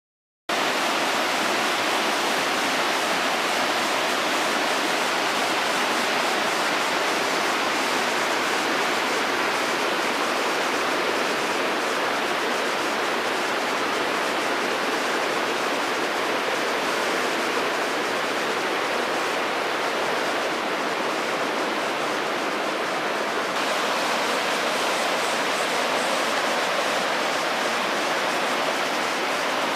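Steady rush of a shallow mountain river running over rocks, starting suddenly about half a second in, its tone shifting slightly about two-thirds of the way through.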